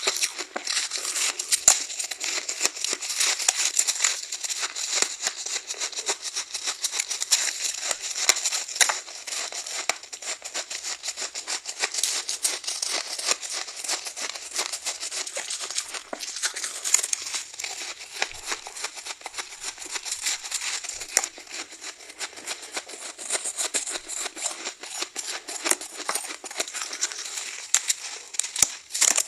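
Soft frozen ice being bitten and chewed close to the microphone: dense, continuous crackly crunching made of many small cracks, bright and with no low thud.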